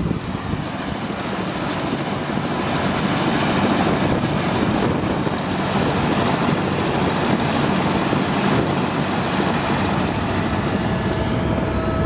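Helicopter turbine engine and rotor running, growing louder over the first few seconds and then holding steady.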